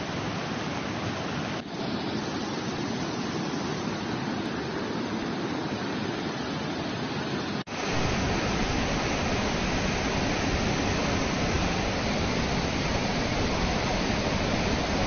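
A river in flash flood: muddy floodwater rushing in a steady roar of noise. The sound dips briefly about two seconds in and again near eight seconds, and after that it is louder, with more low rumble.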